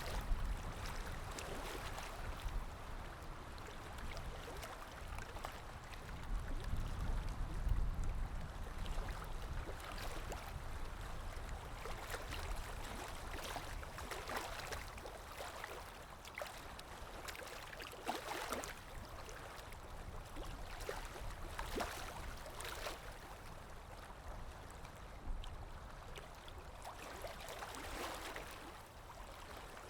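Calm sea waves lapping gently on the shore, with a soft splash every few seconds over a low rumble that swells about seven seconds in.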